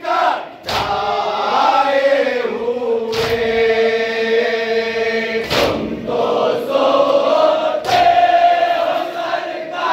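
Men chanting an Urdu nauha, a Shia lament, together in unison. Four sharp slaps of hands on chests (matam) come about two and a half seconds apart.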